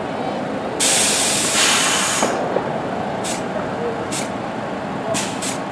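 A stationary R62A subway train venting compressed air from its brakes. There is a loud hiss lasting about a second and a half, then four short hisses over the next few seconds.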